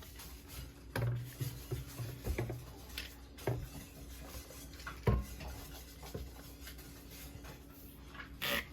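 Cloth rag rubbing and wiping a kitchen surface, with a few light knocks along the way.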